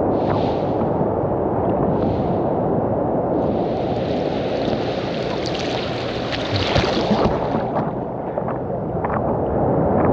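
Ocean surf washing in with wind buffeting the microphone, a steady low rumble, with a louder hissing rush of breaking waves from about three to eight seconds in.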